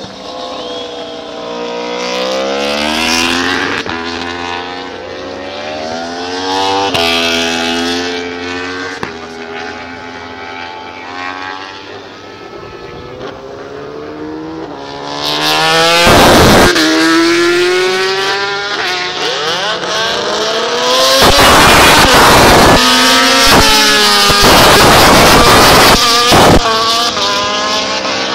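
2009 MotoGP 800cc four-stroke race bikes accelerating past trackside, the engine note climbing and dropping back again and again as each bike shifts up through the gears. From about 15 seconds in, the passes are much louder and harsher and overload the recording.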